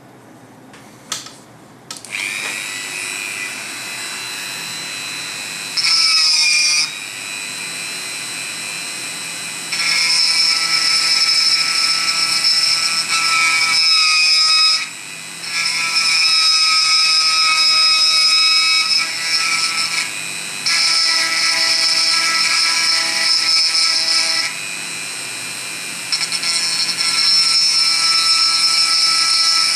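Dremel rotary tool switched on about two seconds in and running with a steady high whine while a small bit grinds out the inside of a wooden box. The loudness steps up and down every few seconds as the bit is pressed into the wood and eased off.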